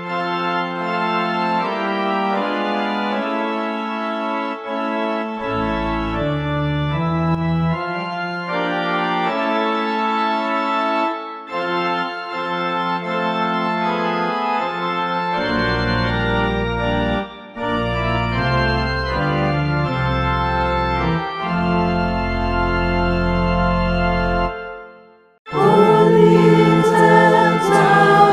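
Organ playing slow, held chords, with deep bass notes joining and dropping out from about five seconds in. The organ stops near the end and a choir starts singing.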